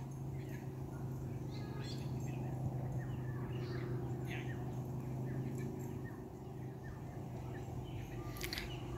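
Birds calling with short chirps and quick sweeping notes, scattered throughout, over a steady low hum that fades for a moment past the middle.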